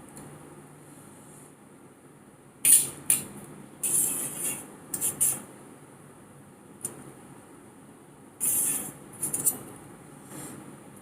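Eating utensil scraping and clinking against a plate in several short clusters: a couple of sharp clicks about three seconds in, a longer run of scrapes around four to five seconds, and another run near nine seconds.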